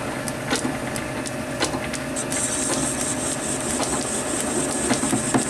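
Small belt-driven lathe running slowly while the tool cuts the rim of a zinc-aluminium flywheel casting. About two seconds in a high-pitched cutting hiss starts, and near the end a light knock comes about four times a second, once per turn, as the tool meets a hard spot in the casting, probably an inclusion or a chilled spot.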